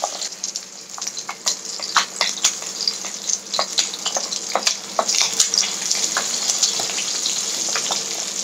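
Whole fish frying in hot mustard oil in a wok: a steady sizzle with frequent sharp crackles and spits, as a wooden spatula nudges and turns the fish.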